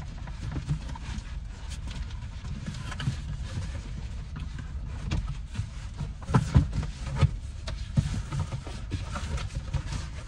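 Cardboard shipping box being handled and tugged at while a shoebox is worked out of it: rustling and scraping of cardboard with irregular knocks. The loudest thumps come about six to eight seconds in.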